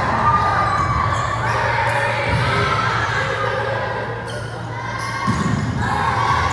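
Indoor volleyball rally: the ball is played with dull thuds, and players' feet land on the gym floor, over a steady low hum in the echoing hall.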